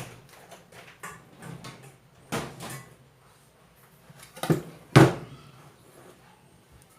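A few irregular knocks and clunks of kitchen utensils and containers being handled, the loudest about five seconds in.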